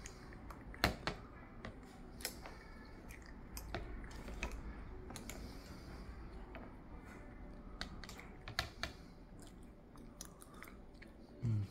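Scattered light clicks and taps of a toddler's plastic spoons against plastic bowls, with some chewing. A short low hum from a voice comes near the end.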